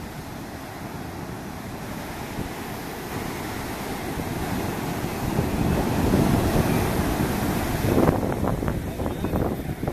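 Ocean surf breaking and washing up a sandy beach, swelling louder in the middle and peaking about six to eight seconds in, with wind buffeting the microphone near the end.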